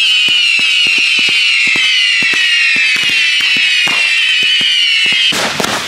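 A whistling firework giving one long, loud, shrill whistle that slowly falls in pitch and cuts off after about five seconds, with sharp crackling pops scattered over it. A rough crackling burst follows near the end.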